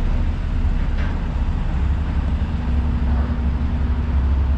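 Idling engines on a vehicle ferry's deck: a steady low rumble with a constant droning hum.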